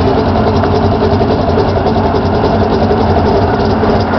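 Derby car's engine running with a loud, steady rumble and a fast, even beat of firing pulses as the car drives slowly.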